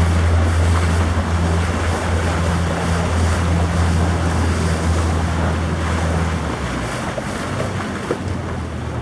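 Pontoon boat's outboard motor running with a steady low hum, mixed with wind on the microphone and water washing past the hull. A little past two-thirds of the way through, the hum weakens and drops lower.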